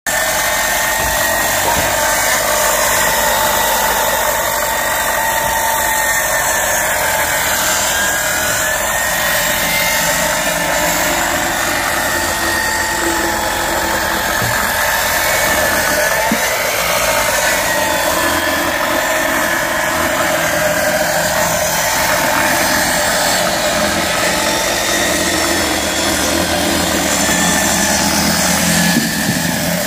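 Large-blade Skilsaw circular saw (a 'bigfoot' beam saw) ripping a wood beam lengthwise, its motor whining steadily under load as the blade cuts through the timber.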